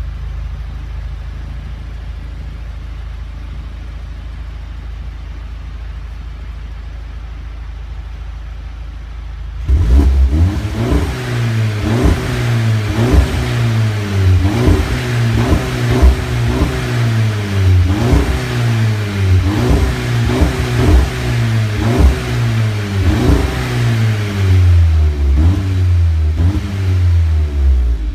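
Volkswagen Golf Mk7 GTI's turbocharged 2.0-litre four-cylinder through an aftermarket MG Motorsport quad-tip exhaust. It runs steadily at low revs for about ten seconds, then is revved up sharply and blipped over and over, the exhaust note rising and falling with each rev.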